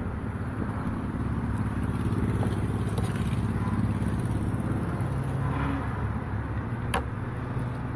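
An engine running steadily nearby, a low hum whose pitch shifts slightly partway through, with one sharp click near the end.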